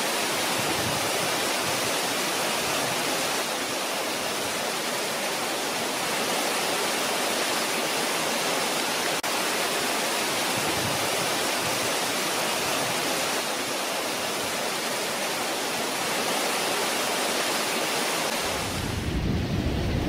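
Waterfall pouring down a rock face: a steady, even rush of falling water. A low rumble comes in near the end.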